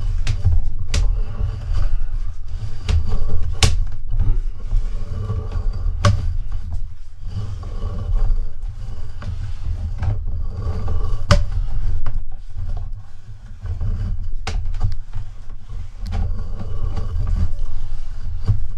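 Steady low rumble with scattered sharp knocks, from a sewer inspection camera and its push cable working along a drain pipe.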